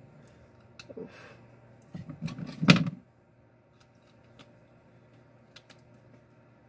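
Small plastic clicks and knocks from handling a keypad mobile phone, with a cluster of rubbing and a loud clack about two and a half seconds in, then a few faint scattered ticks.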